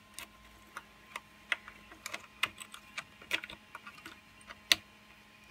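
Irregular light clicks and taps of 3D-printed plastic parts as a droid's hinged door and its locking lever are worked by hand, about a dozen in all, the loudest a little before the end. The mechanism is not yet running smoothly: the door still rides up and jams.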